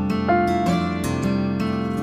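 Background instrumental music: plucked-string notes, harp- or guitar-like, struck one after another and ringing on over a steady low accompaniment.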